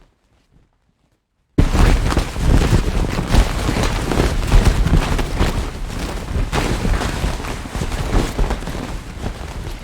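Near silence, then about a second and a half in a synthetic thunder effect, made with the DopplerPRO plugin from a processed clothing-rustle recording, starts suddenly: a heavy low rumble thick with crackles that runs on loudly.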